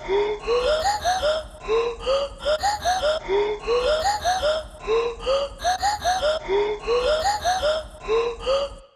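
Background music: a looped phrase of short pitched notes stepping upward, repeating about every second and a half over a steady low bass, cutting off suddenly just before the end.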